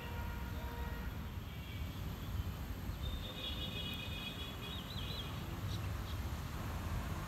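Outdoor ambience with a steady low rumble. About three seconds in, a high pitched call lasts about two seconds and wavers at its end.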